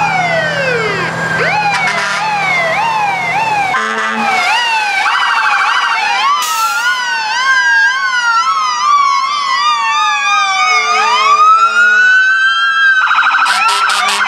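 Several fire-truck and police-car sirens sounding together. Slow rising-and-falling wails overlap fast yelps, and a rapid pulsing tone comes in near the end.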